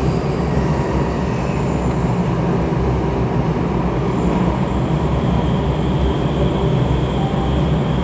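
Cabin noise of a rubber-tyred Bombardier light rail car running along its guideway: a steady, loud low rumble of tyres and drive.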